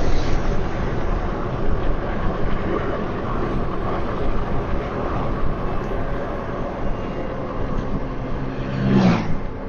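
Car driving: steady engine and road noise heard from inside the cabin.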